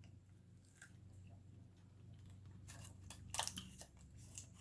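A person biting into and chewing a dark chocolate keto cup topped with almonds, with a short run of faint crunches a little under three seconds in.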